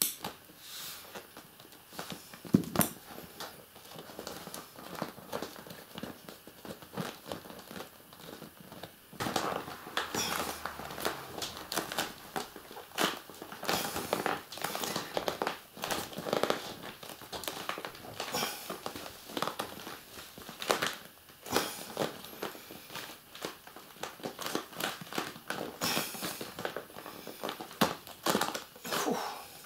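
PVC fabric of an inflatable dinghy tube crinkling and rubbing under the hands as the old valve's inner clamping piece is worked out through slits cut in the tube: irregular crackles and scrapes, with a sharp knock about three seconds in, and the handling getting busier from about nine seconds in.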